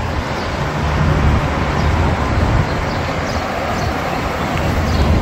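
Steady city street traffic noise: an even hiss of passing vehicles over a low engine rumble.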